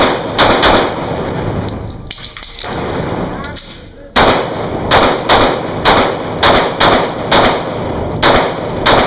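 Semi-automatic pistol shots in an indoor range, each a sharp crack with a short echo off the walls. There are three quick shots at the start, a pause of about three seconds, then a steady string of about a dozen shots, two or three a second.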